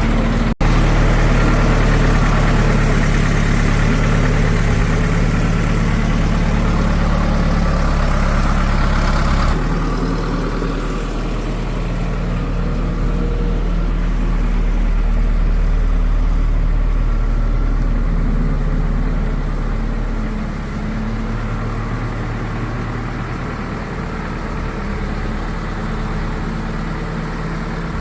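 Heavy diesel machinery engine running steadily and loudly at an even speed. The sound cuts out for an instant just after the start, changes abruptly about a third of the way through, and drops a little in level about two-thirds of the way through.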